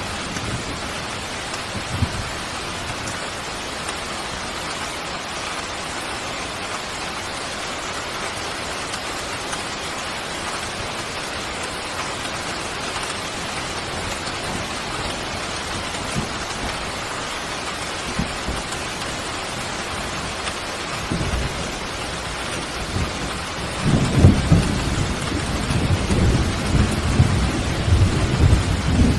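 Steady rain falling throughout, with thunder rumbling in low about two-thirds of the way through and growing loud over the last few seconds.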